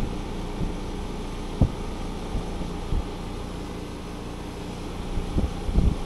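Trane two-stage outdoor AC unit running with a steady mechanical hum. A few low thumps of wind on the microphone come about a second and a half in and again near the end.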